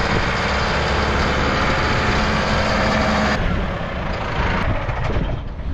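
Heavy diesel engine running steadily, with a loud hiss over it that cuts off abruptly about three and a half seconds in.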